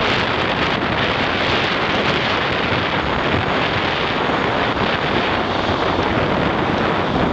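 Steady wind noise on the microphone over the running noise of a Hong Kong double-decker tram moving along its rails.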